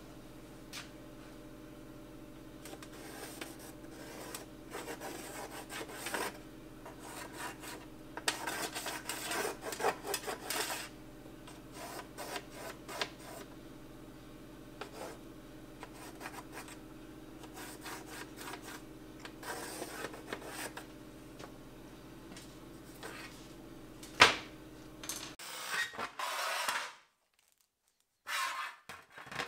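A pencil tracing around a radiator fan held on an aluminium sheet, scratchy rubbing in irregular bursts over a steady low hum. A single sharp knock comes near the end.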